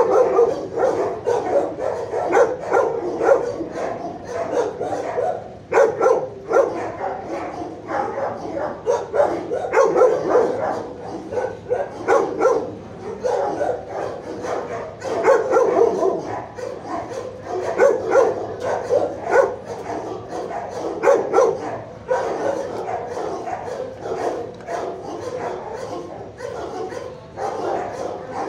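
Many dogs barking and yipping over one another in a shelter kennel block, a constant uneven chorus with no pause.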